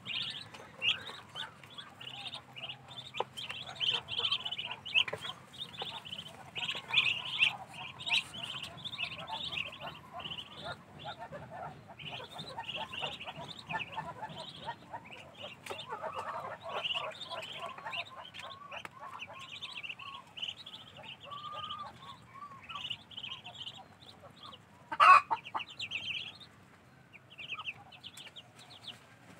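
Muscovy ducklings peeping, a dense chorus of short, high-pitched peeps, with lower-pitched calls joining in through the middle and one loud, short squawk near the end.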